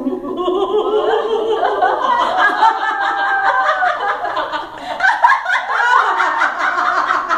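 A small group of women laughing loudly together in a laughter yoga exercise, several voices overlapping. The laughter breaks out all at once and eases briefly a little past halfway before swelling again.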